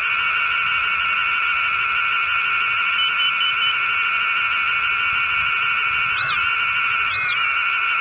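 Brushless motors of a Skystars Angela145 cinewhoop quadcopter idling after arming, a steady high whine, with two short blips up and back down in pitch about six and seven seconds in.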